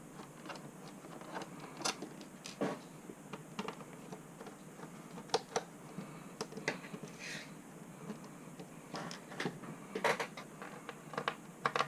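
Light, irregular clicks and taps of a Phillips screwdriver and tiny screws against a laptop's plastic bottom case as the screws are backed out, with a brief scrape about seven seconds in.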